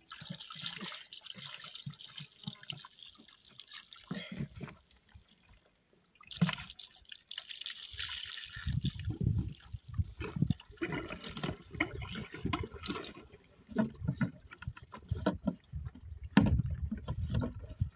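Water splashing and trickling in uneven spurts. In the second half come irregular dull low knocks and rumbles.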